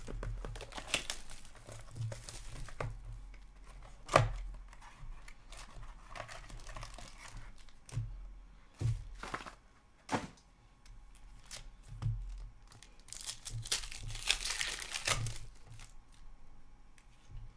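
Hockey card packaging being torn open and crinkled as hands handle the cards and cardboard box, with two longer stretches of tearing and crinkling near the start and about three-quarters through. Scattered sharp knocks, the loudest about four seconds in.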